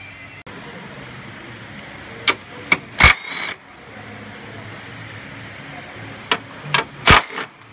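Two bursts of sharp metallic clicks and clanks a few seconds apart, each ending in a louder knock, over a steady workshop hum: hand tools working on a car's radiator mounting bracket while the radiator is being removed.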